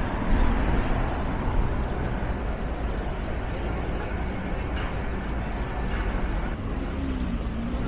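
Street traffic ambience: steady noise of city buses and cars driving past, with faint voices of passers-by.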